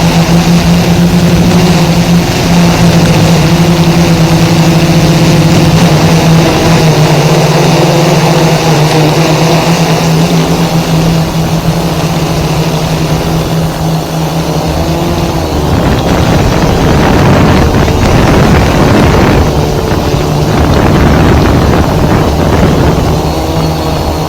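F550 hexacopter's electric motors and propellers running in flight, a loud steady hum with an even pitch. About 16 seconds in the hum turns rougher and wavers as the motors change speed.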